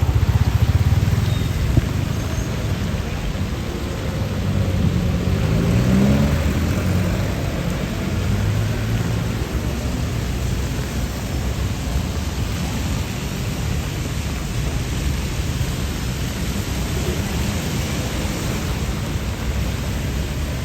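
Steady rain falling, a constant hiss with a low rumble underneath; the rumble swells briefly about six seconds in.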